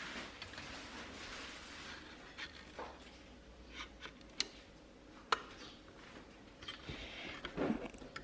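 Scattered small clicks and taps of an SSD being handled and pushed into an Intel NUC's drive bay and connector, which is a tight fit.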